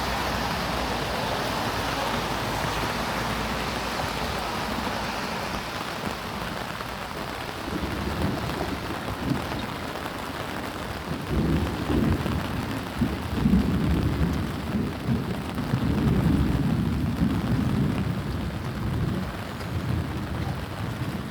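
Steady rain falling, with a low, uneven rumble that comes in about eight seconds in and is loudest around the middle.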